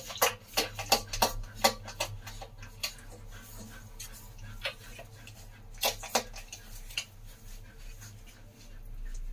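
A litter of Doberman Pinscher puppies nursing: irregular sharp clicks and smacks, thick in the first two seconds, then a few scattered ones.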